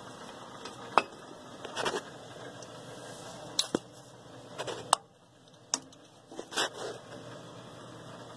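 A series of sharp metallic clinks and short scrapes, about eight of them at irregular intervals, from tools and bolts being handled while a hydronic heating circulator pump is taken apart.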